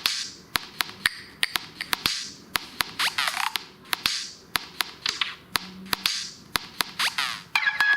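Google Pixel 6 incoming-call ringtone: an electronic pattern of sharp rhythmic clicks with whooshing swells and quick gliding chirps. A steady held tone comes in near the end.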